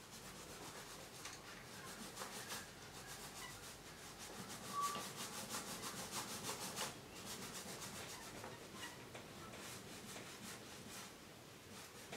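Small sponge roller worked quickly back and forth over a canvas, laying on acrylic paint: a soft, rhythmic rubbing of about four or five strokes a second, with a brief squeak midway.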